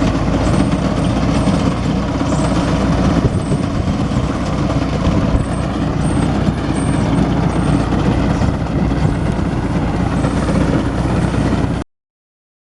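Ursus 2812 tractor running steadily while working a wheat reaper machine, engine and cutter together, until the sound cuts off suddenly near the end.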